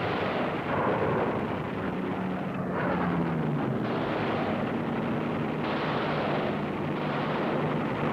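Combat sound effects: a dense rumble of explosions and anti-aircraft fire, with fresh bursts about every one to two seconds, over a steady low aircraft engine drone.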